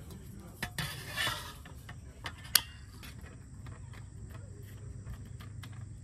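A red camping gas canister and its screw-on attachment being handled on a table: a brief scraping rub about a second in and a sharp click about two and a half seconds in, with a few lighter clicks and knocks.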